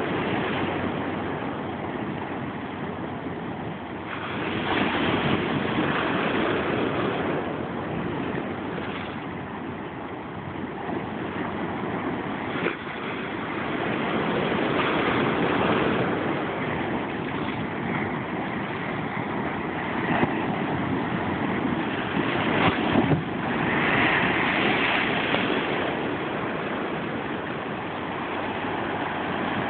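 Ocean surf washing up and breaking over a low rock ledge at the waterline: a steady rush that swells as each wave breaks, about every ten seconds.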